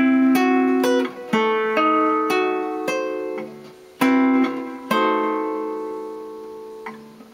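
Solo nylon-string classical guitar playing chord-melody jazz chords, moving notes inside a D7 flat 9 chord. A new chord is plucked every half second or so, then a chord at about four and five seconds rings out and slowly fades.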